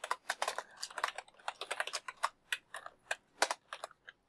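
Typing on a computer keyboard: a quick, irregular run of keystroke clicks that thins out near the end.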